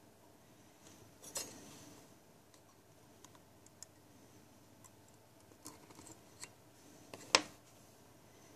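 Faint small metallic clicks and scrapes of a small screwdriver and thin coil leads working at the post screws of a rebuildable dripping atomizer deck, with a sharper click about seven seconds in and a smaller one about a second in.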